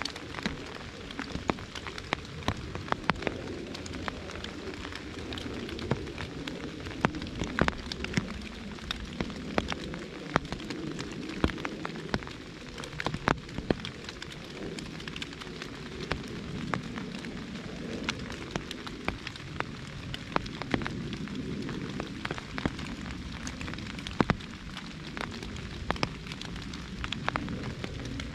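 Rain pattering on an umbrella: a steady patter with many sharp, louder drop hits at irregular moments.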